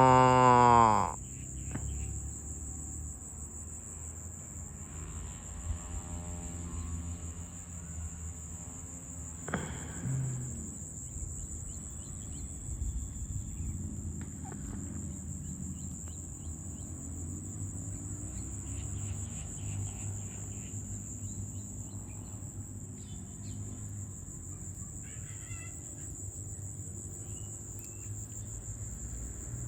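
Steady, high-pitched chirring of crickets throughout. A cow moos once, loudly, in the first second, and a shorter, fainter call comes about ten seconds in.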